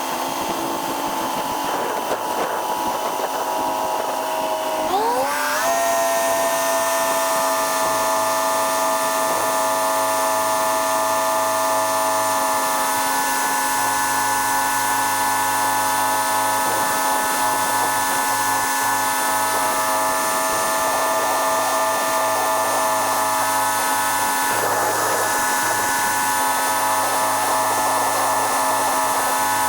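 A machine's whine that rises in pitch about five seconds in and then holds steady, over a steady low hum.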